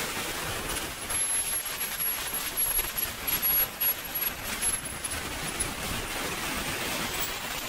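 SWIWIN 300 RC model jet turbine running with a high whine over a steady rushing noise. The whine climbs in pitch at first, holds steady, then starts to drop near the end as the turbine's speed falls.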